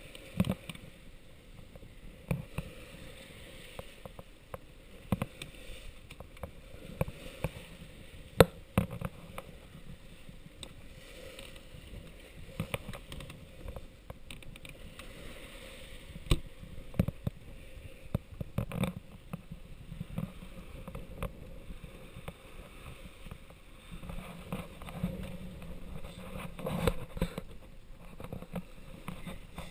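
Sailboat heeled and under way through chop: water rushing and splashing along the hull, broken by frequent sharp knocks and slaps, the loudest about eight seconds in.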